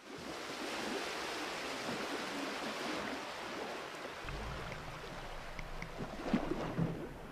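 Water rushing and splashing under a kiteboard as it skims across choppy water, heard through the action camera's microphone. A low rumble joins about four seconds in, and a few sharper splashes come near the end.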